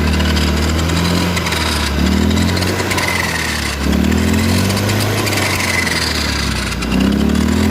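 Honda Beat Street scooter engine running and revved about three times, rising and falling in pitch, with a noisy, rough whine from the rear final-drive gearbox. The whine is the sign of a broken bearing and chipped reduction gears in the final drive.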